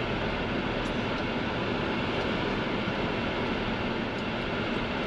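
Steady rumble and hiss of a vehicle driving through slushy mud and floodwater, heard from inside the cabin.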